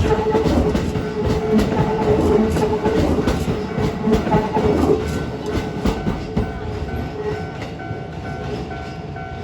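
A Keikyu New 1000 series electric train runs past, its wheels clacking over the rail joints under a steady hum, growing fainter as it goes. From about halfway, a level-crossing warning bell rings in even, rapid pulses.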